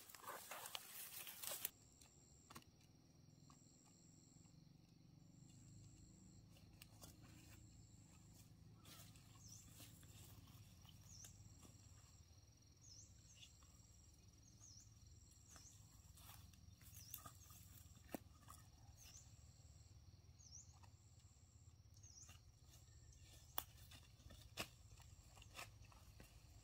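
Quiet rural ambience: a brief crunching rustle at the start, then a faint low rumble with a high, short animal call repeating about every second and a half, and a few scattered clicks.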